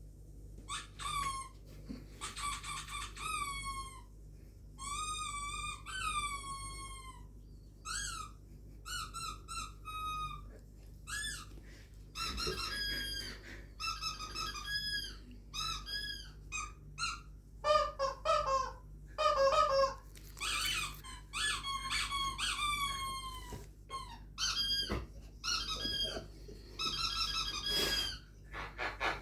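Chirping, squeaky bird-like calls playing from a television speaker: a long run of short whistled notes that slide up and down in pitch, broken by quick trills, with a faint steady hum underneath.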